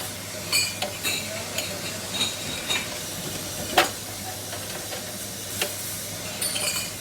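Light metallic clinks and taps, several ringing briefly, with one sharper knock midway, over a steady low machine hum.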